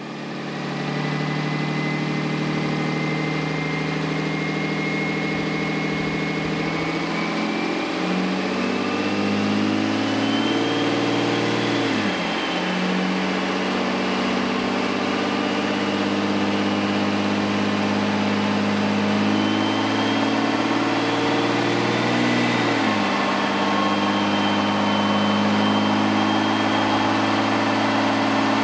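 6.7-litre Cummins inline-six turbo diesel running under load on a chassis dyno, with a faint turbo whistle over the engine note. Twice the pitch climbs and then drops sharply, about twelve and about twenty-three seconds in, as the throttle comes off.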